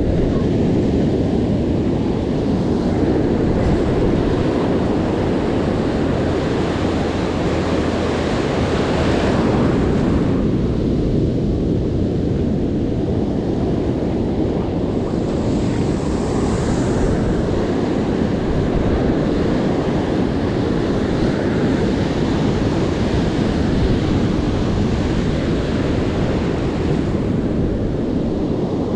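Ocean surf washing in around the legs, a steady hiss that swells now and then, over a low, steady rumble of wind on the microphone.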